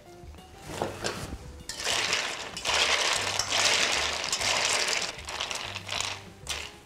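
Ice cubes rattling and clinking against a stainless steel bowl as steamed prawns are stirred through an ice slurry with a spoon, plunged in to stop the cooking. The clatter starts about a second in and is loudest through the middle.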